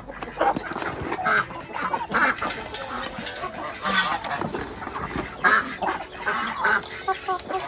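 A flock of chickens clucking and squawking as they crowd a feeder, mixed with duck and goose calls. Around the middle, dry feed is poured from a bucket into a hanging tube feeder.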